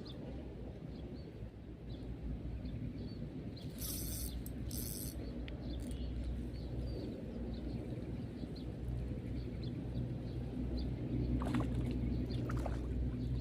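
Outdoor ambience at a fishing pond: a steady low hum under faint scattered bird chirps. About four seconds in there are two short hissing bursts, and two clicks come near the end.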